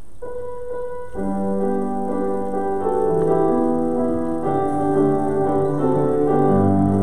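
Church keyboard playing the introduction to a hymn: a couple of single notes, then full held chords from about a second in, with a low bass note joining near the end.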